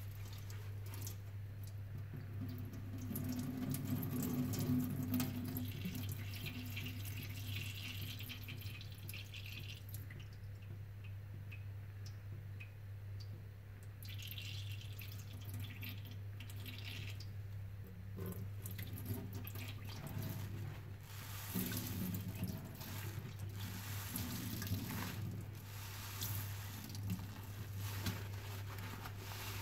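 A soapy sponge squeezed and kneaded again and again in rubber-gloved hands over a stainless steel sink, with wet squelching and dripping. A steady low hum runs underneath.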